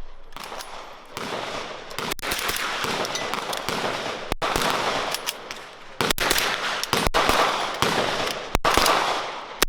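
Gunfire at an outdoor shooting range: many shots from several guns, close together and overlapping, with their echoes filling the gaps, cut off abruptly several times.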